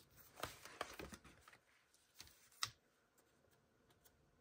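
Faint rustling and light clicks from handling a sticker sheet and paper: a scatter of small taps and rustles over the first two and a half seconds.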